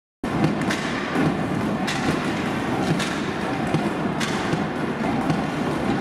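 Ice hockey rink sound starting abruptly a fraction of a second in: a steady hiss of skates on ice and arena murmur, with sharp clacks of stick and puck about four times.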